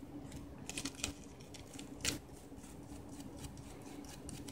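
Faint scratching and light clicks of a computer mouse's circuit board being scrubbed clean of solder flux, with a sharper tick about two seconds in, over a faint steady hum.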